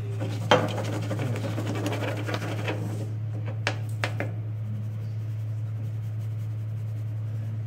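Sand sliding and scratching across a metal drying tray as it is poured out and the tray is tilted to spread it. A sharp click comes about half a second in, and two light knocks come about four seconds in, over a steady low hum.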